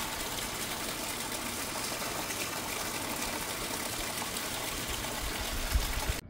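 Heavy rain falling steadily, with water gushing from a roof downspout into a plastic bucket. A brief low thump comes near the end.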